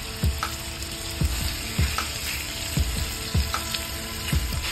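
Raw chicken pieces sizzling in hot oil in a frying pan, a steady hiss. Underneath, background music has a regular low thumping beat.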